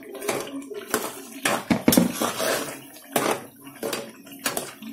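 A metal spoon stirring crushed tomato into fried onions in a cooking pot: wet sloshing with irregular scrapes and clinks of the spoon against the pot.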